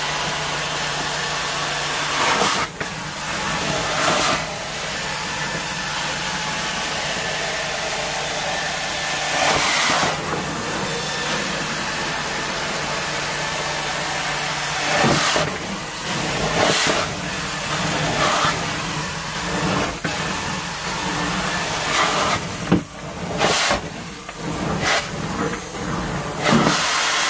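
Carpet-cleaning extraction wand pulling water and dirt out of carpet under strong vacuum: a loud, steady hiss that surges and dips as the wand is pushed and pulled, changing most often in the last few seconds.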